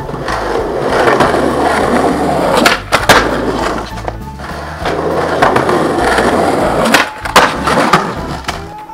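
Skateboard wheels rolling on concrete, a continuous grinding roll, with several sharp board clacks about three seconds in and again near the end.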